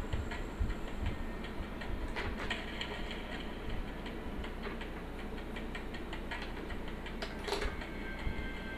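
Pen nib scratching on paper in short, quick inking strokes: a run of light ticks and scratches over a steady low hum.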